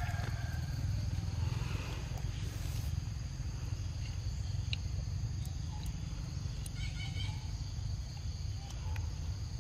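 Forest ambience: a steady high insect drone over a constant low rumble, with a few short chirps about seven seconds in.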